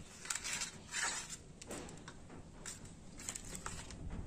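Faint, scattered clicks and scrapes of a knife against a steel plate as pieces of dhokla are lifted off it and set into disposable bowls.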